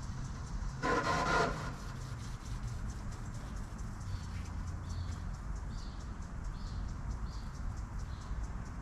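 A Lennox Merit Series air-conditioner condenser running steadily, its compressor and fan giving a low hum. A short, loud pitched call sounds about a second in, and faint high chirps repeat less than a second apart in the second half.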